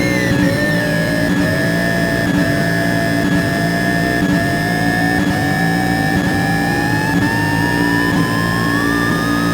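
Soma Laboratories Lyra-8 analog synthesizer droning in a dark, noisy texture: steady low tones and a steady high tone hold underneath while one voice slowly glides upward in pitch.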